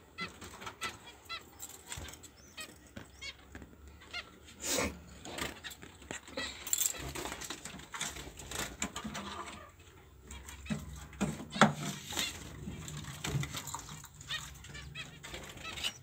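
Caged budgerigars and finches calling with short chirps and nasal honk-like calls while they feed, with a few sharp clicks, the loudest about two-thirds of the way through.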